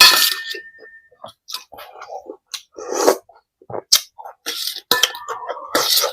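A person eating soup close to the microphone: irregular slurps and chewing noises, with a spoon clinking against the bowl, sharply at the start and again about five seconds in.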